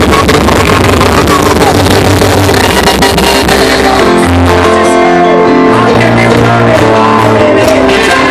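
Live rock band playing loud, with electric guitar, bass and drums. The sound is distorted and harsh from being recorded right next to the PA speakers.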